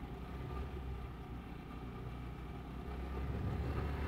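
Vespa GTS 300 Super Sport scooter's single-cylinder engine running steadily, with wind and road noise, heard through a mic inside the rider's helmet. It grows a little louder near the end.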